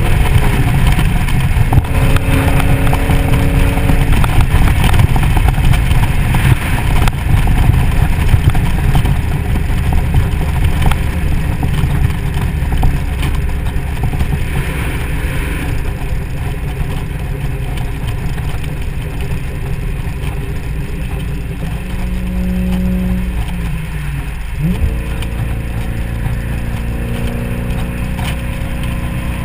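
2003 SVT Mustang Cobra with the top down, cruising at freeway speed: a steady rush of wind and road noise, with the supercharged V8's engine note under it. The engine note dips and then rises sharply about 25 seconds in.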